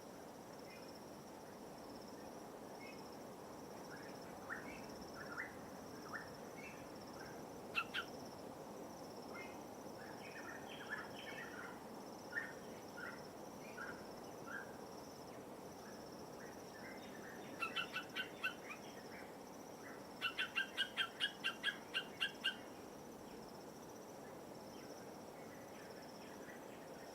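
Birds calling over a steady high insect drone and a soft, even wash of light waves. Scattered short chirps give way to two quick runs of repeated notes, a short one about 18 seconds in and a longer one of about nine notes soon after.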